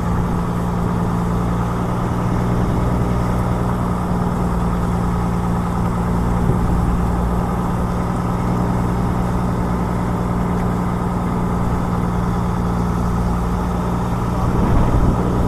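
Engine aboard a fishing boat running steadily at an even speed: a constant low drone with no changes in pitch.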